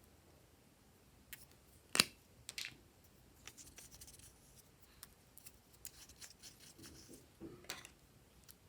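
Glossy slime being handled and mixed, giving sharp sticky clicks and crackles, with one loud click about two seconds in.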